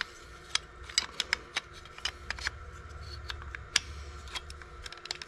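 Irregular small clicks and taps of plastic and metal parts as an ignition switch actuator is wiggled and finessed to line up its pin in the ignition lock housing.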